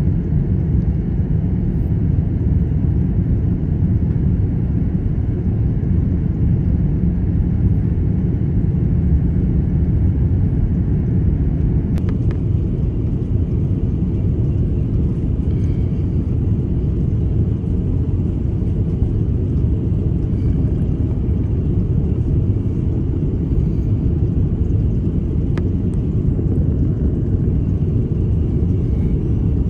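Steady low rumble of engine and airflow noise inside the cabin of an Airbus A330-200 on its descent to land. Two faint clicks come about twelve and twenty-five seconds in.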